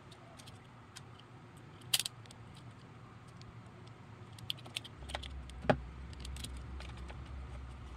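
Small clicks and rattles of a turntable's junction-box board and metal bracket being handled and fitted back in place with a screwdriver. There is a sharp cluster of clicks about two seconds in and the loudest click just before six seconds. A low hum comes in about five seconds in.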